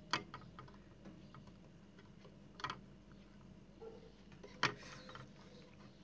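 Faint sharp clicks and taps of a soldering iron and circuit board being handled during soldering: three louder clicks about two seconds apart, with a few fainter ticks between them, over a low steady hum.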